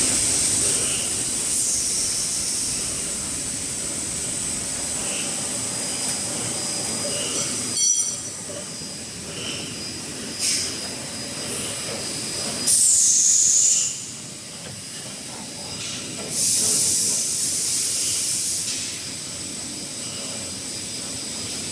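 Kitchen-towel roll heat-shrink packing machine running: a steady mechanical rumble with repeated bursts of high-pitched hissing, the loudest about 13 seconds in, and a faint tick about every two seconds.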